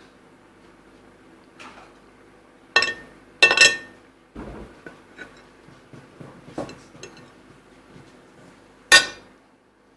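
Dishes and cutlery clinking in a kitchen: a few sharp clinks about three seconds in, smaller knocks after, and one more sharp clink about nine seconds in.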